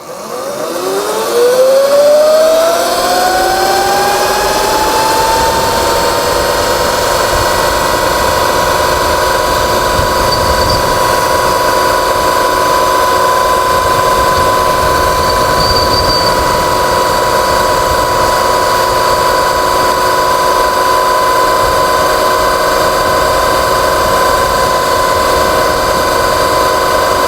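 Sur-Ron X electric dirt bike's motor and chain drive whining at full throttle. The whine climbs in pitch over the first five or six seconds, then holds steady at top speed over a low rushing noise.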